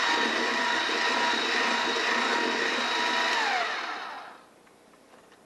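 Handheld electric mixer running steadily as its beaters work a thick butter, sugar and egg mixture in a glass bowl. A little over three seconds in it is switched off, and its whine falls in pitch and dies away.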